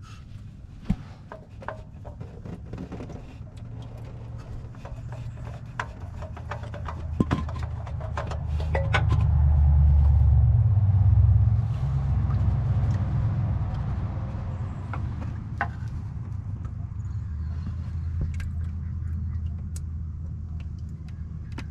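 Scattered small clicks and knocks of an oil filter being unscrewed by hand and handled under a car. A low rumble swells to its loudest about ten seconds in, then fades.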